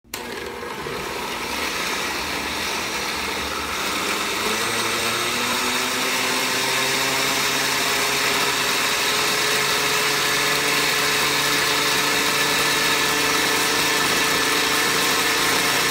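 Countertop blender motor running steadily, blending strawberries, blueberries and almond milk into a smoothie. Its pitch rises a little over the first several seconds as the fruit breaks down and the load on the motor eases, and it grows slightly louder.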